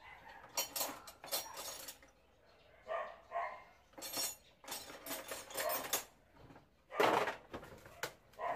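A dog barking several times in short, separate bursts.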